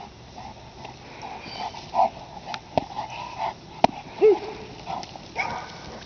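Presa canario gripping a jute bite sleeve, making short, repeated throaty growls, with a few sharp cracks between them.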